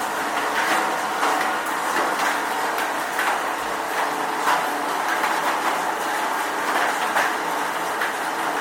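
Steady rain falling, with many separate drops splashing through it.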